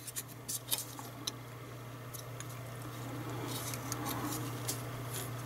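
A satellite receiver's circuit board being handled and turned over: several light clicks and taps in the first second or so, then faint rubbing. A steady low hum runs underneath.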